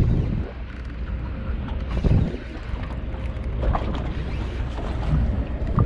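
Wind buffeting the action camera's microphone over choppy water lapping against a small boat, with a few dull knocks.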